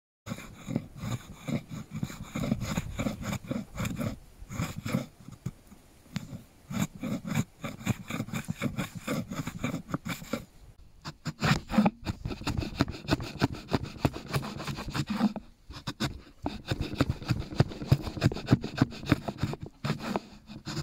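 Steel edge tools shaving and paring a sycamore axe handle: many quick, short scraping strokes in bunches, with brief breaks about halfway and near the end.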